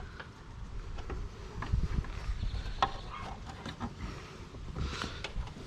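Light scattered clicks and rustles of hands working a plastic bulb socket back into a car's side-marker housing, over a low steady rumble.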